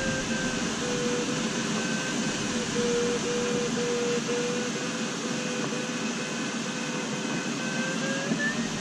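Glider cockpit: a steady rush of airflow past the canopy with the audio variometer sounding a string of short beeps, its pitch sagging slightly in the middle and rising again near the end as it tracks the climb rate in a thermal.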